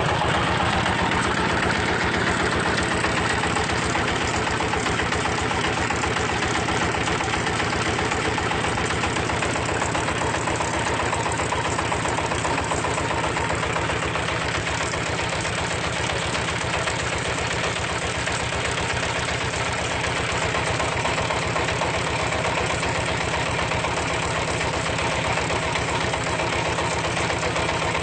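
Engine-driven red-brick moulding machine running steadily, its engine keeping a rapid, even beat without change.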